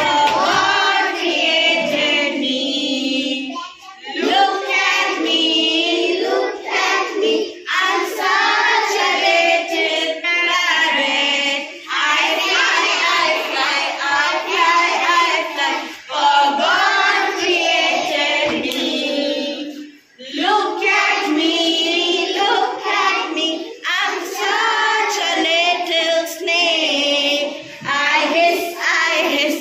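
A group of young children singing an action rhyme together in unison, in short sung lines with brief breaks between them.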